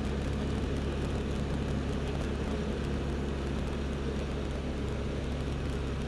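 L-13 Vivat motor glider's piston engine and propeller running with a steady drone, heard inside the cockpit, with a constant hiss over it.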